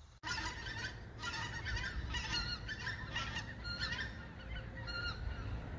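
A flock of geese flying overhead, honking: many short, overlapping calls repeating throughout.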